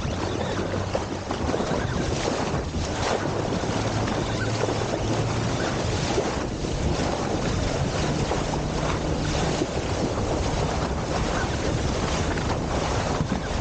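Boat engine running with a steady low hum, under wind buffeting the microphone and the rush of water.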